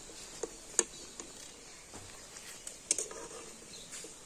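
A few light, sparse clicks and taps of a metal ladle against an iron karai of hot water and jackfruit chunks, over a faint steady hiss.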